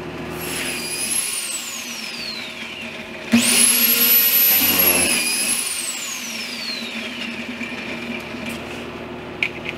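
Benchtop pocket-hole drilling machine: its motor whine falls away as it winds down, then it starts again with a sudden jump in level just over three seconds in, drills a pocket hole for about two seconds, and winds down with a falling whine.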